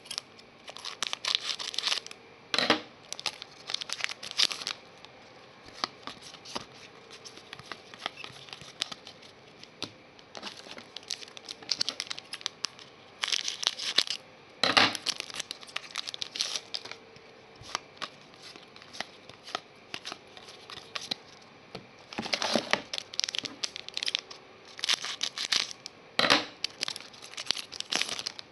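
A foil trading-card pack wrapper being crinkled and torn open by hand, in several bouts of crackling with quieter handling between.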